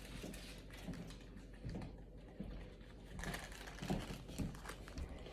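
Faint, irregular light taps and clicks of small craft materials being handled on a tabletop.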